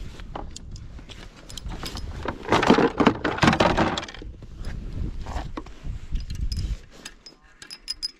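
Ice-fishing gear being handled, clattering and clicking: a rod taken from a plastic tackle crate and a flasher unit carried to the hole. It is loudest in a burst of rattling about two and a half to three and a half seconds in, with a few quick clicks near the end, over a low rumble of wind on the microphone.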